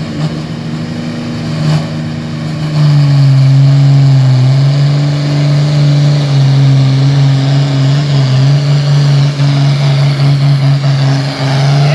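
Cummins diesel in a Farmall 560 pulling tractor running flat out under heavy load while dragging a weight sled, a steady, loud drone with black smoke showing it is fuelled hard. It gets louder about three seconds in, with a few brief dips in level near the end.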